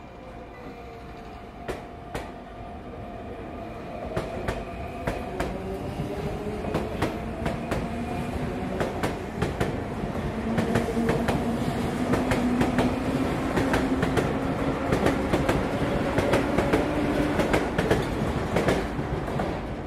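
Sotetsu 8000 series electric train pulling into the platform and braking to a stop. Its wheels click over rail joints, and the motors whine steadily, both growing louder as it comes alongside before easing off near the end.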